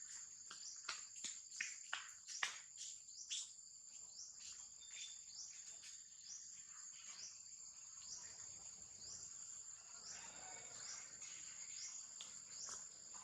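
Forest insects: a steady high-pitched drone with short rising chirps repeating every half second or so. In the first few seconds there is also a run of sharp clicks and snaps.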